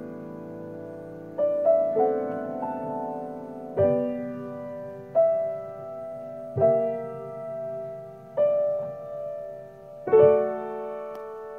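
Yamaha grand piano played slowly. A held chord rings at first, then chords are struck one at a time, every second or two, each left to ring and fade.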